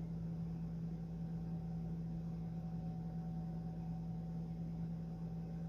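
Steady low electrical-sounding hum over faint even background hiss, with no distinct events.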